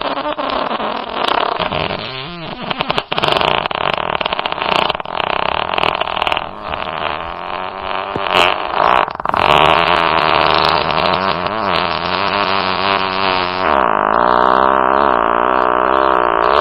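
A long prerecorded fart sound effect from an online soundboard: one continuous, crackling fart whose pitch wobbles up and down, turning steadier near the end.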